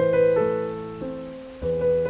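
Slow piano music over steady rain: single notes and chords struck and left to ring and fade, with a fresh note entering about a second and a half in.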